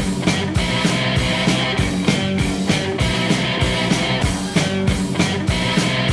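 Rock music with electric guitar and a steady drum beat, played over the end of the video.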